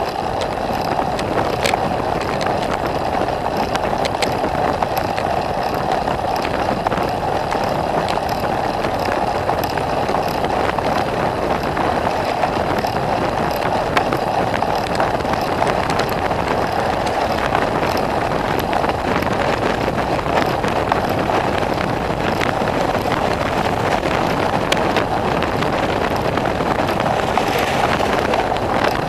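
Steady rushing noise of a bicycle being ridden along a road, its tyre on the tarmac and wind on the microphone. Near the end a van passing close alongside adds to the noise.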